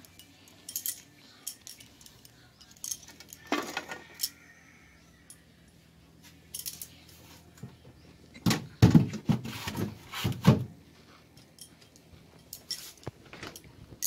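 Light clicks, knocks and clinks of vegetables and plastic refrigerator shelves and drawer being handled, with a louder cluster of knocks about nine to ten and a half seconds in.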